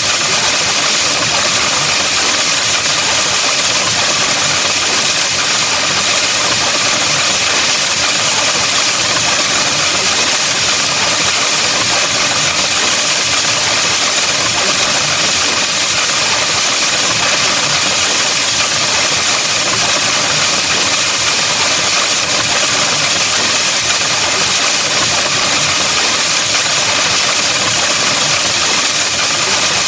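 Autovocoded sound effect: a loud, dense, unbroken electronic buzz that stays at one level with no pauses.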